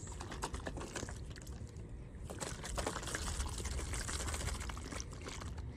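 A 50/50 mix of yellow coolant and distilled water sloshing inside a plastic gallon jug as it is shaken to mix it, with a soft irregular swishing.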